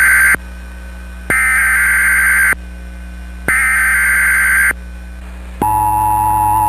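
Emergency Alert System SAME header: three harsh, buzzing bursts of digital data tone about a second each, a second apart. The bursts encode the coming alert. About five and a half seconds in, the steady two-tone EAS attention signal begins.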